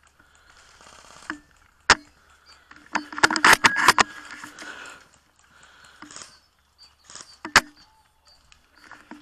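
Tokyo Marui VSR-10 spring-powered bolt-action airsoft sniper rifle firing with a sharp crack about two seconds in, then the bolt worked back and forth with a rattling, creaking spring cocking for about a second, and a second shot near the end.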